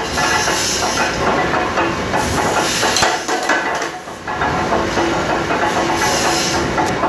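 Loud, steady factory machinery noise, with hiss and a busy run of clattering knocks.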